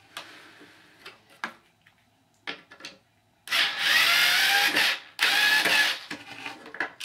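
Ryobi cordless power screwdriver running in two bursts, the first about a second and a half long and the second shorter, backing a mounting screw out of a door closer, with a whine that rises slightly in pitch. A few small clicks and taps come before it.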